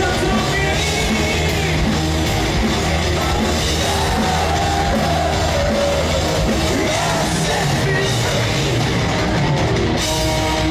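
Heavy metal band playing live and loud: electric guitars and drums under a singer's wavering, shouted vocal line, recorded from the crowd.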